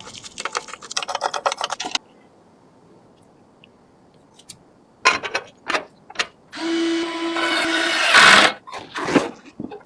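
PC assembly sounds: a fast run of clicks for about two seconds that stops abruptly, a few sharp knocks, then a small power tool whirring steadily for about a second and a half, ending in a louder burst and more knocks.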